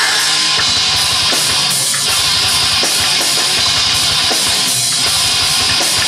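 Live rock band playing loud, heavy music: drum kit, bass guitar and electric guitars.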